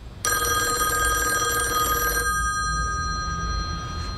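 Telephone bell ringing: one ring of about two seconds that starts just after the beginning and cuts off about halfway through, leaving a faint low hum.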